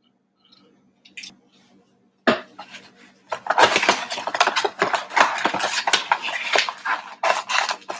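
Cardboard trading-card blaster box being torn open, with its packaging and card packs crinkling and rustling. A few faint ticks, then a sharp rip about two seconds in, and from about three seconds in a dense, loud run of crackling.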